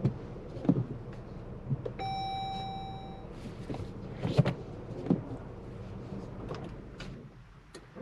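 Inside a 2023 Jeep Compass driving in snow: a steady low rumble with scattered knocks and thumps. About two seconds in, a single steady electronic beep from the car lasts just over a second.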